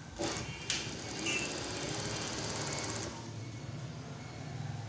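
Industrial single-needle lockstitch sewing machine test-stitching through fabric, with a couple of clicks at the start and then a rapid steady run of stitches. About three seconds in, the stitching stops and the motor hums on. The machine is stitching cleanly without breaking the thread after its bobbin-thread pickup was adjusted.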